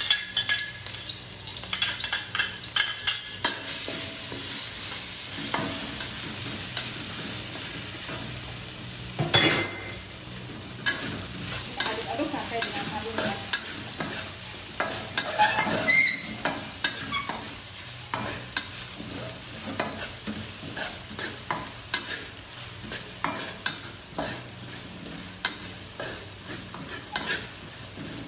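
Blended garlic and red chili sizzling in hot oil in a wok, with a metal spatula scraping and tapping against the wok as the paste is stirred. One louder knock comes about nine and a half seconds in.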